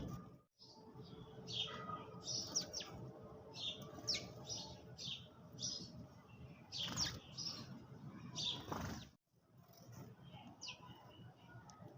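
Sparrows chirping: a busy run of short, quick chirps, with two louder, longer calls about seven and nine seconds in.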